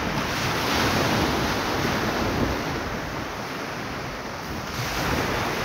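Surf washing on the shore with wind on the microphone: a steady rush that eases a little midway and swells again near the end.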